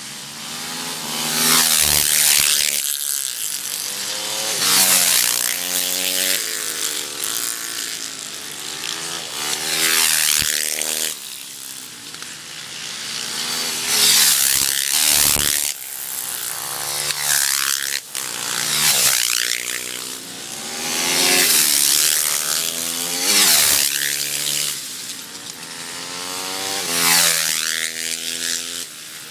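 Dirt bike engines revving hard as the motorcycles race past, the pitch climbing and dropping again and again, with a loud swell every few seconds as a bike goes by.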